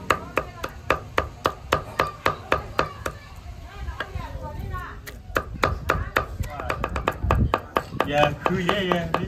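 A large knife chopping and mincing raw catfish flesh on a thick wooden chopping block: steady chops about three a second, a lighter, sparser stretch a few seconds in, then quicker chopping again.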